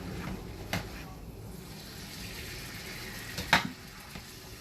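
Kitchen work at the stove: a steady hiss with a light clack early on, and a sharp clank of cookware about three and a half seconds in.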